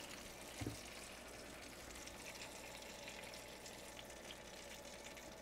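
Faint, steady sizzling from a freshly roasted whole chicken and its drippings on a hot oven tray, with a soft knock about half a second in.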